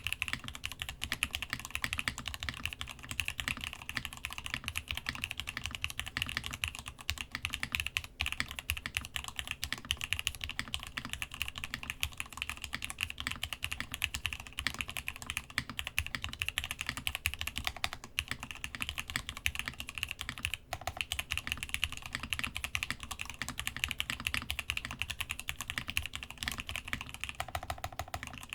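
Continuous typing on a Masjewerke Muramasa mechanical keyboard fitted with spring-swapped, lubed Gateron X switches, lubed Cherry clip-in stabilizers and DCD Gondor keycaps, on a desk mat over a solid wood desk. A fast, steady stream of key clacks and deeper thocks.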